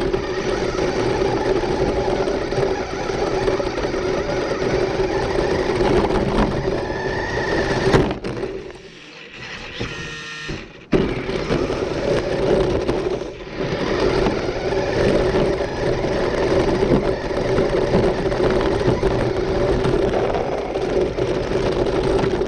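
Carrera RC Big Rock monster truck's electric motor and gearbox whining steadily as it drives over grass and rough asphalt, heard from a camera mounted on the truck. About eight seconds in there is a knock and the running drops back for a few seconds, then it picks up again.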